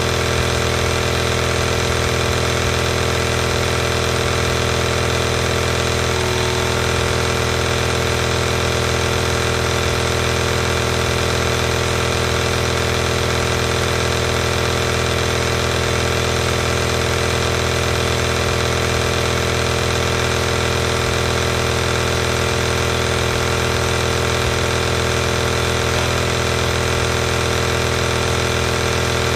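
Compressor nebulizer running steadily: a constant motor-pump hum with a hiss of air.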